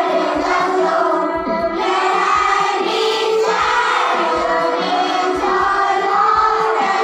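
Children singing a prayer song in unison into a microphone, with musical accompaniment and a low, regular beat under the voices.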